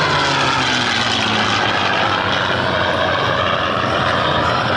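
A P-51 Mustang's V-12 piston engine running at power on a flyby. Its pitch drops over the first second or so as it passes, then holds steady as it climbs away.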